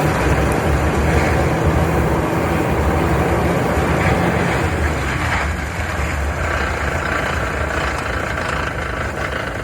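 Toyota Land Cruiser on the move: steady engine and drivetrain hum, easing off and getting quieter from about five seconds in as the truck slows.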